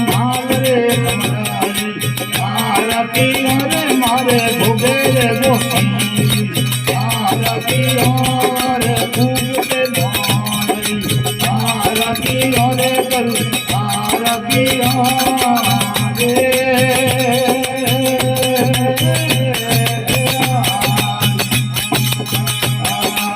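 Devotional aarti music in Rajasthani folk style: a wavering melody over a steady low drone, driven by fast, continuous rattling percussion.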